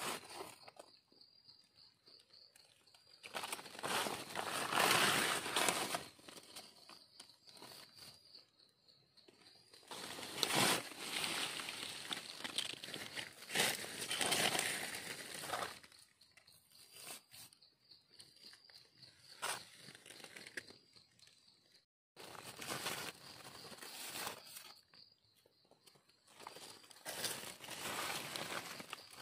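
Dry leaf litter and twigs on the forest floor crunching and rustling as it is disturbed. The sound comes in irregular bursts of a few seconds with quieter gaps between.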